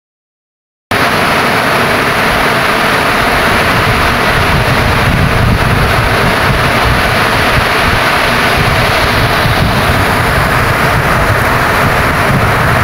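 Rain falling steadily, a dense even hiss that starts abruptly about a second in.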